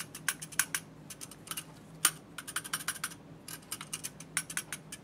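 Light metallic clicks and ticks in quick, irregular clusters from the small metal parts of a slit lamp's rotary diaphragm selector being handled and turned while its spacing is checked.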